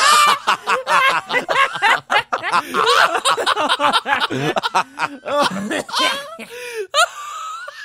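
Several men laughing hard together in rapid bursts, as voice-acted cartoon laughter. The laughter dies away near the end.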